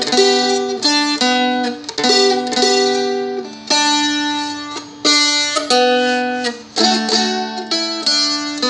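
Seagull Merlin, a small four-string fretted dulcimer, strummed quickly: a bluegrass-style melody of changing notes rings over steady droning open strings.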